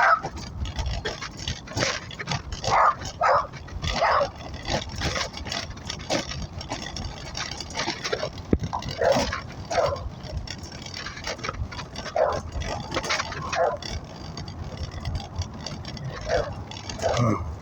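Dogs barking repeatedly: short barks in irregular bursts, a few close together, with brief pauses between.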